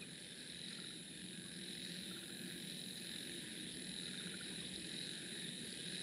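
Faint, steady chirping of crickets: a continuous high-pitched trill.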